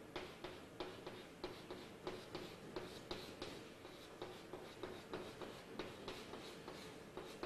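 Chalk scratching and tapping on a blackboard in quick short strokes, about three a second, as small scale marks are drawn onto a fish outline.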